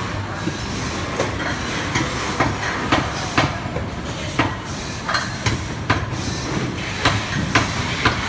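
Steady low mechanical rumble with irregular sharp clacks, about two a second, like machinery running in a workshop.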